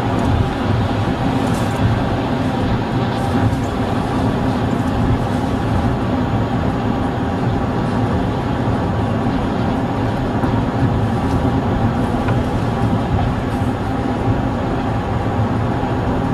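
Car driving at highway speed, heard from inside the cabin: a steady rumble of road and engine noise that holds even throughout.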